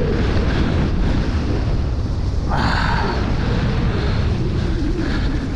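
Downhill mountain bike riding fast over rough dirt trail: steady wind buffeting on the microphone over the rumble and rattle of the bike, with a brief harsher noise about two and a half seconds in.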